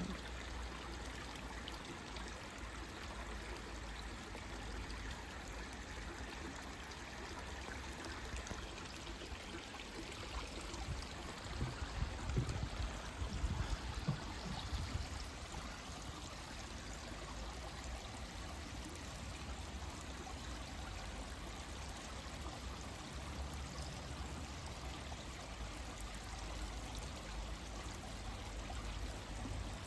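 Small forest stream flowing steadily over rocks, a continuous trickling rush of water. A few low thuds come about halfway through.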